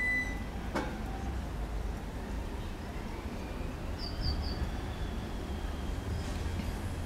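Outdoor ambience: a steady low rumble, a single click about a second in, and three quick high bird chirps near the middle, over a faint whistle that slowly rises and falls.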